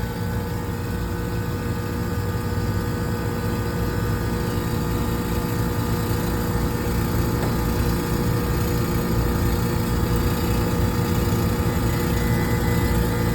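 Carrier two-stage HVAC unit running steadily, with compressor and condenser fans on, giving an even machine hum that swells slightly. It runs without tripping its breaker.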